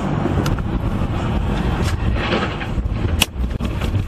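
Road and engine noise of a car driving on a wet highway, heard from inside the car, with a few sharp clicks; the loudest click comes about three seconds in.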